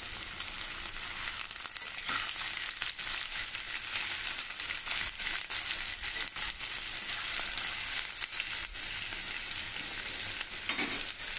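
Sliced raw onions frying in hot oil in a steel kadai on medium heat, a steady sizzle with scattered crackles and pops, early in the frying before the onions turn translucent.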